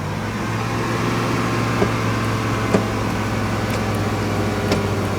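Electric power-seat motor of a 1988 Rolls-Royce Corniche II running steadily as the seat moves to a memory position, a low hum with a few light clicks.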